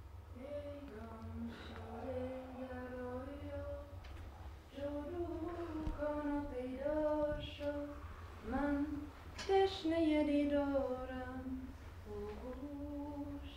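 A woman's voice singing a slow melody in long held notes, with no instruments showing, over a low steady hum.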